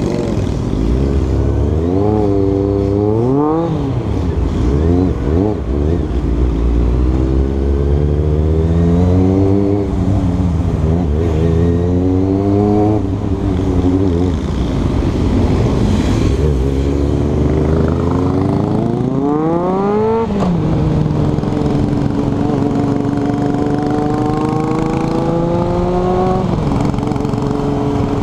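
Motorcycle engine heard from the rider's seat, its revs rising and falling several times as it pulls away, with one long climb about two-thirds of the way through that drops back sharply, then a steadier slow climb; low wind rumble on the microphone underneath.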